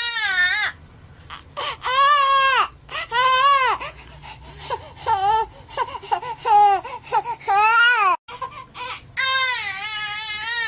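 A baby crying: a long steady wail that stops abruptly under a second in, then a run of short rising-and-falling cries with gaps between them, before the steady wail cuts back in near the end.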